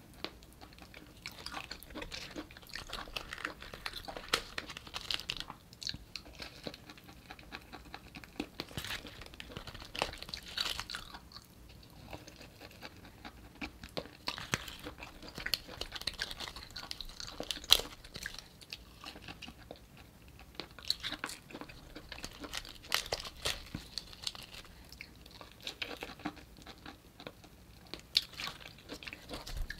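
Close-miked eating of cooked artichoke leaves: leaves bitten and drawn through the teeth and chewed, with irregular wet clicks and small crunches.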